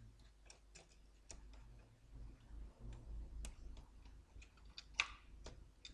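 Faint, irregular light clicks and taps of a computer motherboard being handled and seated into its metal chassis, with one sharper click about five seconds in.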